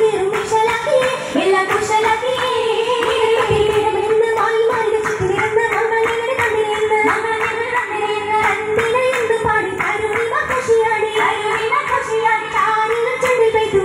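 Oppana song: a sung melody in the Mappila style over steady rhythmic group hand clapping.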